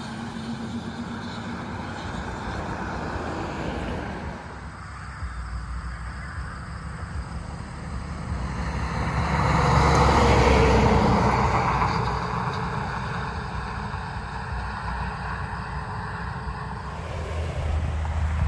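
Semi-trucks hauling tank trailers driving by on the road, engine and tyre noise. About halfway through one truck passes close, rising to a peak and then fading away.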